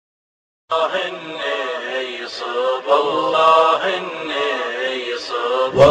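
Male voices singing a slow, wordless Arabic chant in layered, choir-like harmony, with no instruments; it begins suddenly under a second in, after silence.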